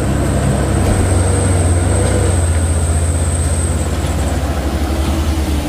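Diesel engine of a Mitsubishi Fuso Canter light truck running under load as it crawls up a rough dirt road close by, a steady low drone. Over it runs a thin, steady high whine that stops about two-thirds of the way through.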